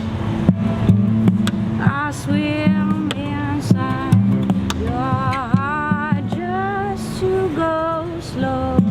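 Guitar music: a repeating low guitar figure, with a higher melody line that bends and wavers in pitch over it from about two seconds in.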